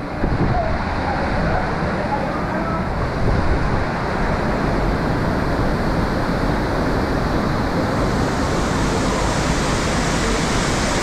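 Waterfall pouring into a narrow rock gorge: a loud, steady rushing of falling water with no letup.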